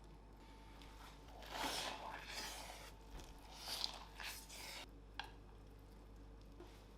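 Crisp crunching of a crusty sandwich in two clusters of short bursts, about one and a half seconds in and again near four seconds, followed by a single sharp click.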